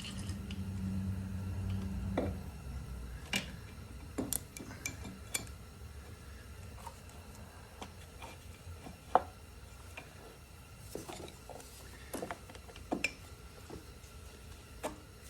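Scattered light metallic clinks and taps of tools and engine parts being handled during reassembly of a motorcycle's top end. A low hum that stops about two seconds in.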